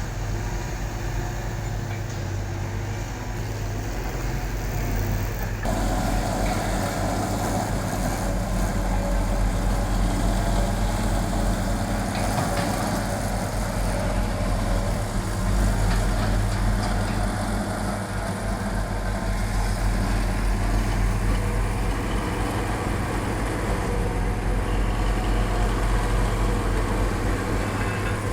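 Caterpillar excavator's diesel engine running steadily as the machine works, with a low hum. The sound grows suddenly louder and fuller about six seconds in and stays that way.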